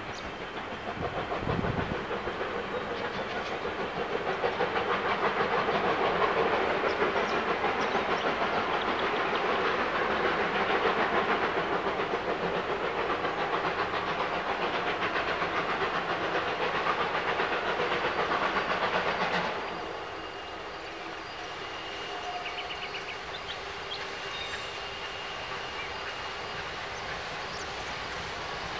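Steam locomotive hauling a train past: a dense, rapidly pulsing run of exhaust and wheel noise that builds over the first few seconds, then falls away sharply about twenty seconds in, leaving a quieter steady rumble with a faint thin high tone.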